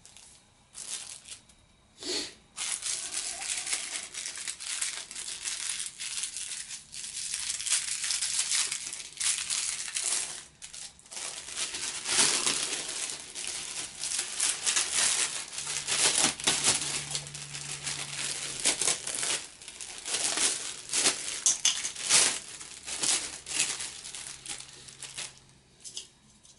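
Clear plastic packaging bags crinkling and rustling in irregular bursts as hands open them and pull out the parts inside.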